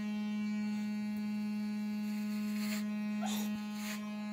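Corded electric hair clippers running with a steady low buzz, trimming the hair around the ear. The buzz drops slightly for about a second near the end, then comes back up.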